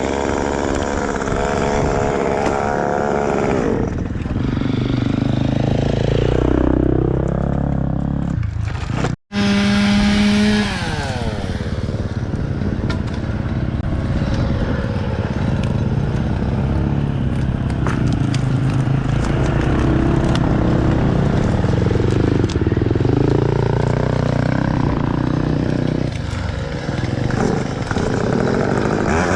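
Two-stroke engines running and revving up and down, the pitch falling and rising again a few times; the sound cuts out for a split second about nine seconds in.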